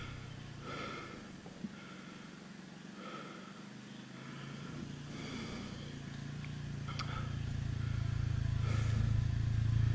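Side-by-side UTV driving up a dirt trail, its engine hum growing steadily louder as it approaches over the second half.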